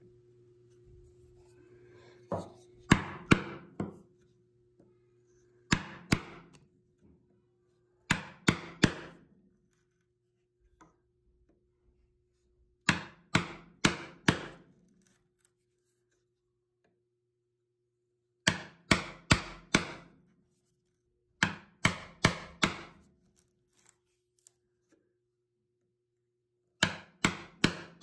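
A chisel being struck to chop a mortise in a pine table leg: seven quick groups of three to five sharp blows, with pauses between groups as the chips are levered out.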